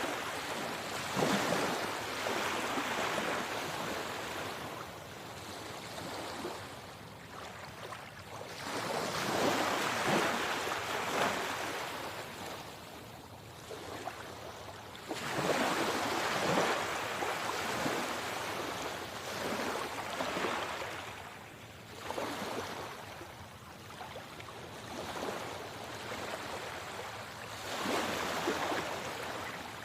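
Sea waves washing in, the noise of the water swelling and fading in slow surges every several seconds.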